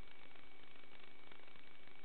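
Steady static hiss from an analogue FPV video link's audio channel, with a faint constant high whine and a few faint ticks; no motor or voice stands out.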